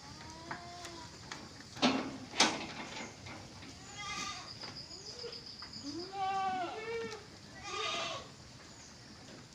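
Several goats bleating, four or five separate calls that each rise and fall in pitch. Two sharp knocks about two seconds in.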